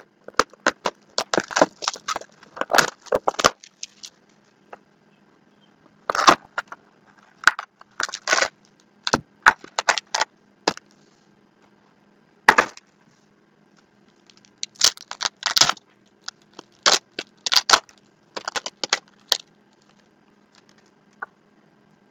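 Plastic wrap and foil trading-card packs being torn open by hand: sharp crinkling and ripping in irregular bursts, with short quiet gaps between them.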